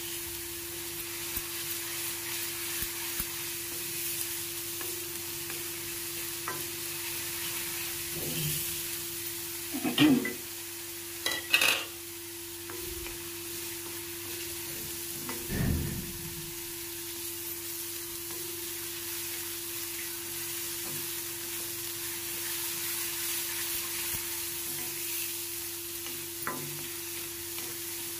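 Ground onion-and-garlic paste sizzling in hot oil in a kadhai while a wooden spatula stirs and scrapes it. A few louder knocks stand out, about ten, twelve and sixteen seconds in.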